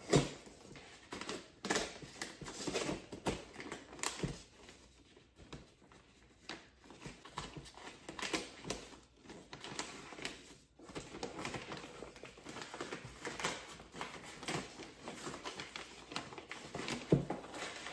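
Gift-wrapping paper rustling and crinkling in short, irregular crackles as it is carefully picked and peeled open along the top of a box.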